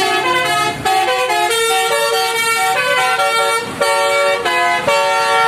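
A bus's multi-tone musical horn (klakson telolet) playing a tune: several horn notes sound together and step to new pitches every fraction of a second, with no real break.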